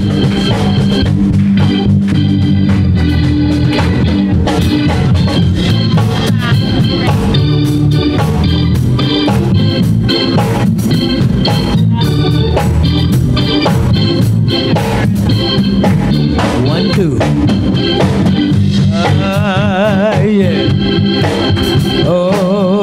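Organ playing sustained chords, with occasional sharp percussive hits.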